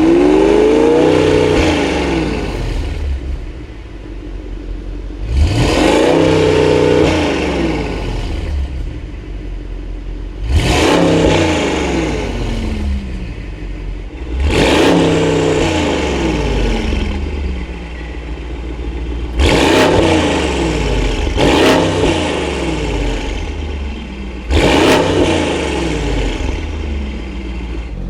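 Mercedes-AMG GT 63 S four-door's twin-turbo V8 breathing through an iPE valved exhaust, revved about seven times, each rev rising quickly in pitch and falling back, a few seconds apart.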